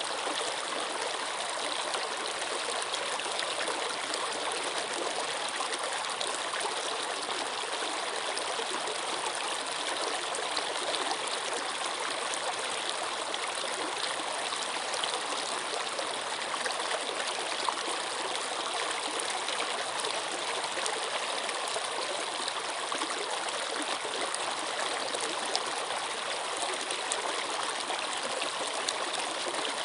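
Running water flowing steadily: an even rush weighted to the higher pitches, with little bass and no change throughout.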